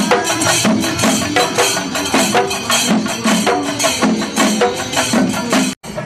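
A group of chenda drums beaten fast with sticks, a dense run of sharp strokes. It breaks off suddenly near the end.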